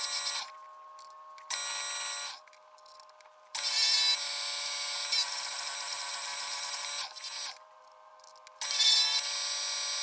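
Benchtop drill press running and drilling through a metal plate, a steady whine of several pitches. It comes in several stretches with quieter gaps between them.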